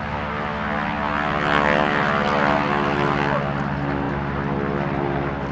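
A propeller aircraft's piston engine running with a steady, loud note that swells a couple of seconds in and then eases.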